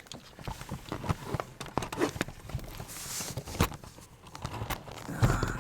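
Irregular knocks, taps and clicks of footsteps and handling, with a brief hiss about three seconds in.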